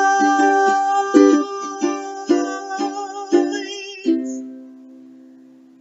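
Ukulele closing a song: a woman's held sung note ends about a second in, then about six strummed chords follow, and a last chord rings out and fades away.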